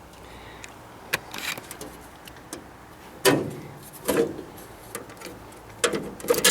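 Clunks and clicks of metal parts being handled on the tractor: a few light clicks, a loud clunk about three seconds in, another soon after, and a quick run of knocks near the end.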